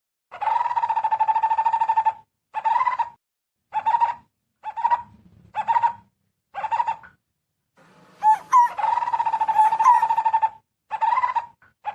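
Barbet (cu rốc) calling: a rapid trill held for about two seconds, then a run of short trilled bursts, then another long trill of about two and a half seconds and one more short burst.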